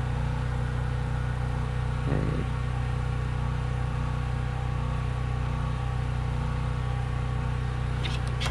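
A steady machine hum, low and even with a buzz of overtones, running without change. A brief voice-like sound comes about two seconds in.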